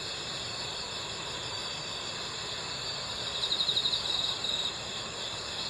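Crickets singing in a steady chorus of high-pitched trilling. About three and a half seconds in, one cricket's louder run of rapid pulsed chirps stands out for about a second and a half.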